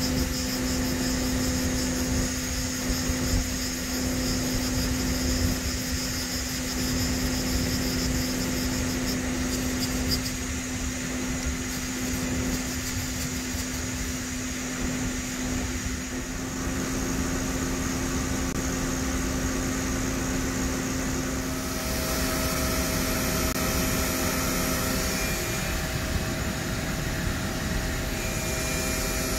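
Mori Seiki NT3100 CNC turning center running, its tilting milling head moving under power: a steady mechanical hum with a low whine. The higher whine drops out about a third of the way in, and about three-quarters through the tones shift, with the low whine stopping.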